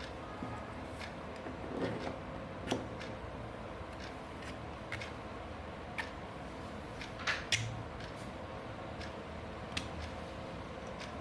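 Scattered light clicks and taps of small hard parts being handled, over a steady low hum. The clearest taps come about two seconds in and as a quick pair about two-thirds of the way through.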